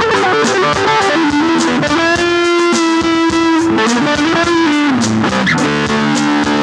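Fender Stratocaster electric guitar playing a single-note lead line, with long held notes and a note bent up and back down about four seconds in.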